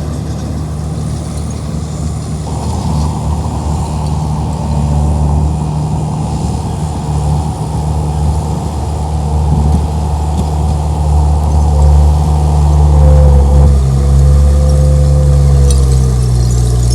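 Komatsu D31P bulldozer's diesel engine running steadily under work, growing louder about halfway through. A thin squealing whine wavers over it for a few seconds near the end.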